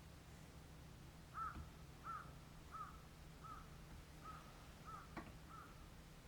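A bird calling a series of seven short, evenly spaced, arched calls, about one and a half a second, with a single click about five seconds in, over a faint low hum.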